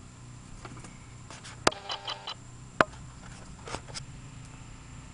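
Two sharp clicks about a second apart, with a quick run of three or four short squeaks between them, then a couple of fainter clicks.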